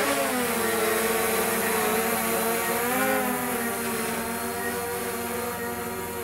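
DJI Mavic Air 2 quadcopter hovering overhead, its propellers buzzing with a whine whose pitch wavers up and down as the motors keep adjusting speed. It is flying on a freshly replaced left front motor and holding a hover that is a little unstable.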